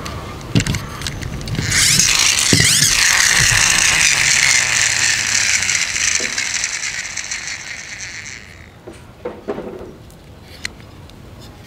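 The plastic gears of a toy tractor whirring as its wheels spin freely. The whir starts about two seconds in, holds steady, then fades away several seconds later. A few light plastic clicks come from the toy being handled.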